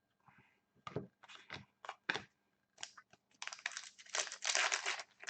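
A trading-card pack's foil wrapper being torn open and crinkled: a run of short rips and rustles that grow denser and more continuous over the last couple of seconds.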